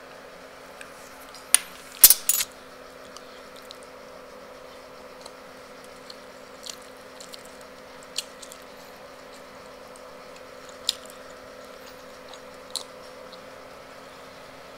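A fork clinks against a plate a couple of seconds in, a few sharp clicks close together. After that come scattered faint clicks and mouth sounds of eating, over a steady low hum.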